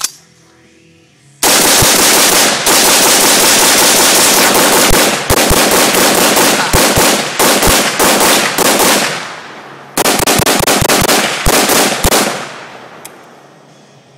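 AR-15 rifle firing: one shot at the start, then a long, rapid string of shots from about a second and a half in until about nine seconds, and a second rapid string from about ten seconds to about twelve, each fading out in echo.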